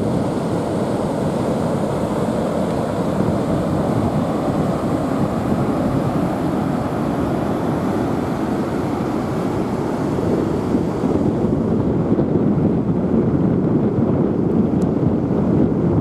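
Wind buffeting the microphone over a steady rush of ocean surf breaking on a sandy beach.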